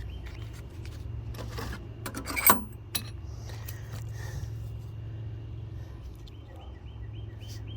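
Small metal hand tools and bits clinking and rattling as they are handled and sorted, with the loudest sharp metal clink about two and a half seconds in. Crickets chirp steadily in the background near the start and end.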